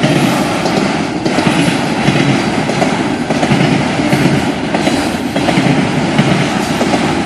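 Long freight train rolling past: a steady rumble of steel wheels on rail, with light clacks as the cars cross rail joints.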